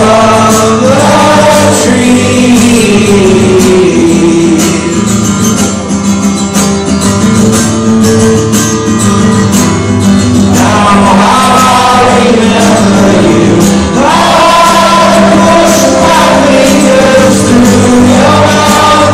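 Live acoustic guitar, strummed steadily, with a voice singing over it. The voice fades out from about four seconds in and returns about ten seconds in.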